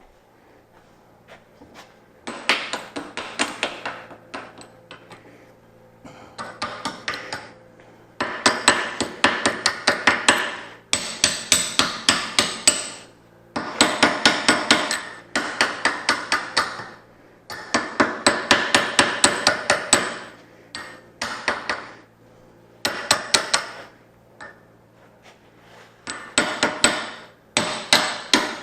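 Chipping hammer tapping slag off a fresh stick weld on steel, in quick runs of taps, several a second, with short pauses between runs. A faint steady low hum runs underneath.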